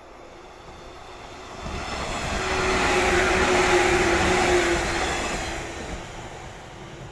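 An electric train passing on rails: wheel-on-rail rumble swells to a peak around the middle and fades away, with a steady whine while it is closest.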